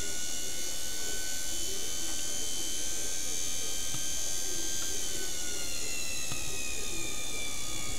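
Small electric motor powered from a bank of supercapacitors, running with a steady high-pitched whine; its pitch drifts slowly down from about five seconds in.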